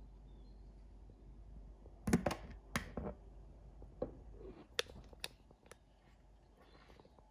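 Handling noise from a handheld camera being moved: a quick cluster of sharp clicks and knocks about two seconds in, then a few single clicks spaced apart.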